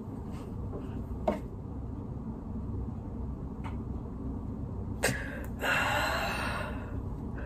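A steady low room hum with a few faint taps, then, about five seconds in, a breathy excited gasp lasting about a second and a half.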